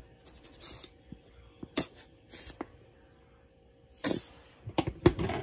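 Spicy brown mustard squirted from a squeeze bottle in several short, hissing spurts, with a quick cluster of them near the end.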